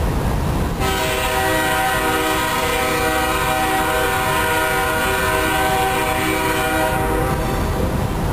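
Diesel locomotive air horn on a BNSF empty coal train sounding one long chord of several notes. It starts about a second in and stops about a second before the end, over the steady low rumble of the approaching train.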